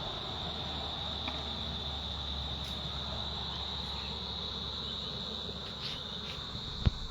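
A chorus of insects giving a steady, unbroken high-pitched trill, over a low rumble. A single thump near the end.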